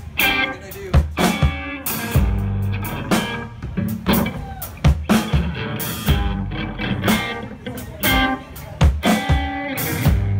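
Band music with electric guitar and drum kit, the drums hitting a slow, steady beat about once a second.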